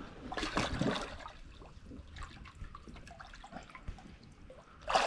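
Lake water trickling and dripping around a large flathead catfish held by the tail at the surface for release, with a sudden loud splash near the end as the fish kicks free.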